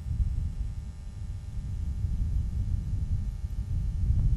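Low, steady rumble of a Soyuz-2.1b rocket's kerosene-fuelled first-stage engines during the climb, heard from far away.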